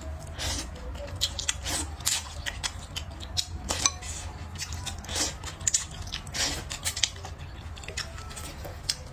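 Close-miked eating: slurping noodles and chewing, with many short wet clicks and smacks. Near the end, a sip of broth straight from the rim of the bowl.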